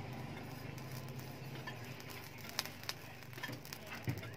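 Charcoal forge fire crackling with scattered sharp pops as a rebar blade heats in the coals, over a steady low hum.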